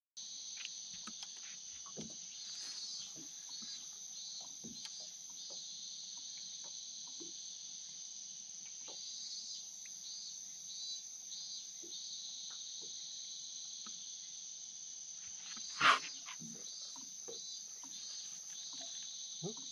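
Steady high-pitched insect chorus, pulsing in places, with scattered faint clicks and knocks, and one short, sharp, loud sound about sixteen seconds in.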